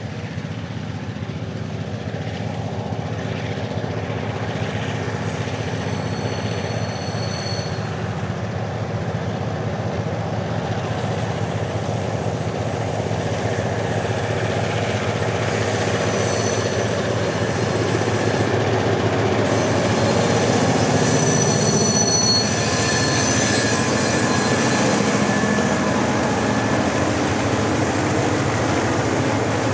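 A diesel-hauled grain train led by locomotive 1601 comes closer and passes, the engines working hard and growing steadily louder. Near the end the hopper wagons roll by with rail noise. There are brief high squeals from the wheels, once about seven seconds in and again from about sixteen to twenty-two seconds.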